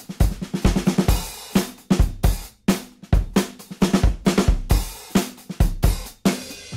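Background music: a drum kit playing a steady beat of kick drum, snare and cymbals.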